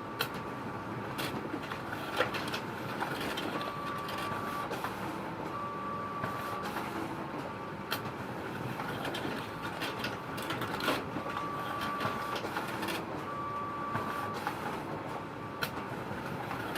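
Photocopier running with a steady mechanical noise and scattered clicks. A high tone lasting about a second sounds several times over the noise.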